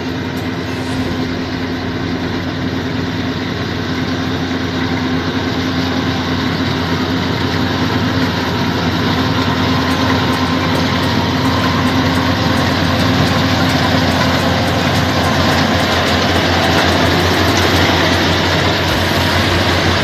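Yanmar rice combine harvester running while cutting rice, a steady engine and machinery noise that grows slowly louder as the machine comes closer.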